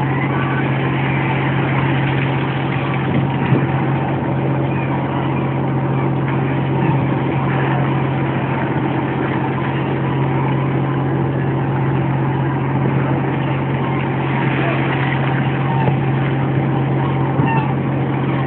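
A boat's engine running with a steady low hum over the rush of water along the hull.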